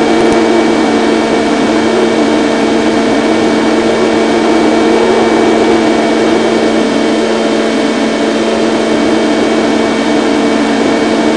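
Electric motor and propeller of a small FPV model airplane running steadily in flight, heard from an onboard microphone, with a steady drone and a slightly wavering pitch over a rush of wind.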